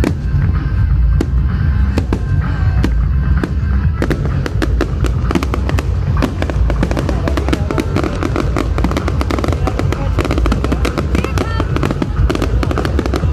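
Fireworks display going off: a stream of bangs and crackles over a steady low rumble, sparse at first and growing much denser about four seconds in.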